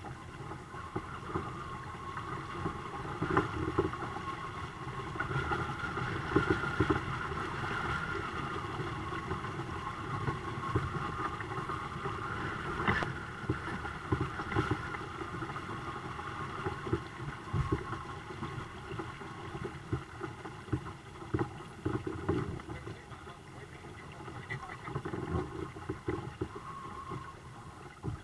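Water lapping and splashing against the hulls of a twin-kayak catamaran under sail, with irregular small knocks and wind noise on the microphone.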